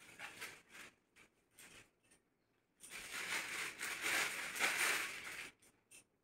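A thin plastic carry bag crinkling and rustling for two or three seconds from about three seconds in, as a hand rummages in it and pulls out folded clothing. Before that come softer, shorter rustles of cloth being handled and folded.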